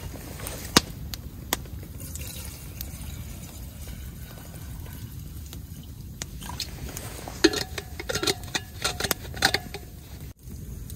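Water poured from a stainless steel bottle into a small metal pot of tea leaves, the stream turning to a quick run of splashing and gurgling about two-thirds of the way through.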